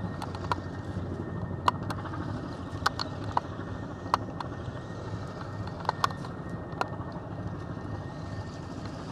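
Steady low hum of a vehicle idling, heard from inside its cab, with about a dozen sharp, irregularly spaced taps of light rain striking the vehicle.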